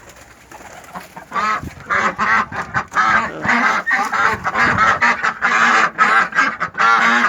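A flock of domestic ducks calling together, many loud honking quacks overlapping. The calls start faintly about a second in and soon become a continuous din.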